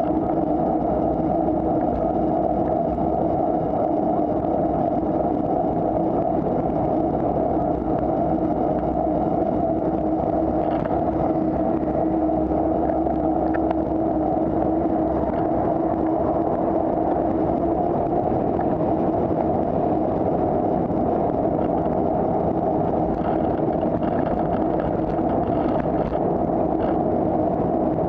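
Steady road noise and wind rush on a bicycle-mounted camera riding beside a busy road, with motor traffic running alongside.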